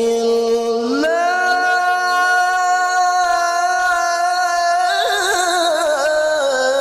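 Solo male Quran recitation (tilawah) sung through a handheld microphone: the voice rises about a second in to a long held high note, then breaks into wavering, ornamented turns near the end.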